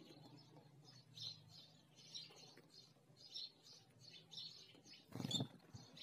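House sparrow chirping: short, faint chirps about once a second. A short, louder knock comes about five seconds in.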